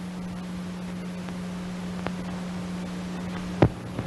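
Steady hiss with a low hum from an old film soundtrack transfer, broken by a faint click about two seconds in and two sharp pops near the end, the first of them the loudest.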